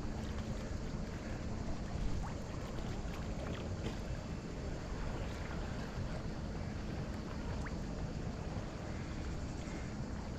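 Calm sea water washing gently against the shore rocks, a steady low wash with a few faint clicks.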